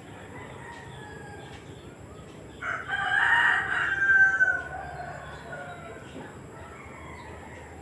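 A loud, drawn-out animal call lasting about two seconds, starting a few seconds in and falling in pitch at the end.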